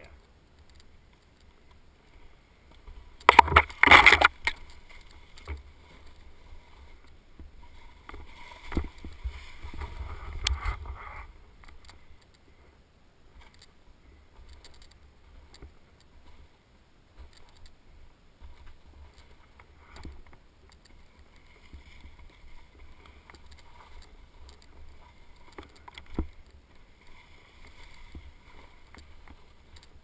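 A snowboard sliding and scraping over snow on a steep slope. A loud, rough scrape comes about three seconds in and another rough stretch around eight to eleven seconds, with a few sharp knocks later and a steady low rumble underneath.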